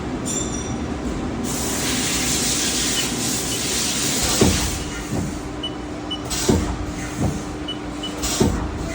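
Haas ST-30SSY CNC lathe running: a steady hum, a spell of hiss for a couple of seconds, then five sharp knocks over the second half.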